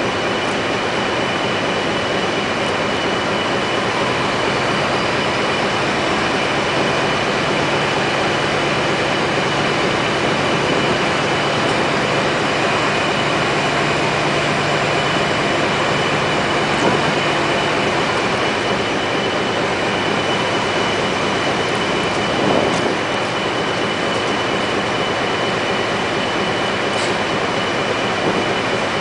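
Heavy moving equipment running steadily and loudly, with a constant high whine over a broad mechanical rush and a few faint clicks.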